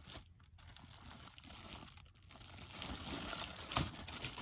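Faint crinkling of the plastic wrap around a new cabin air filter as it is handled and pulled at, with a few small crackles in the second half.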